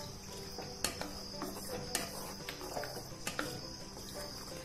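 Spatula stirring thin gravy in a kadhai, with a few light knocks against the pan, over a steady high cricket trill in the background.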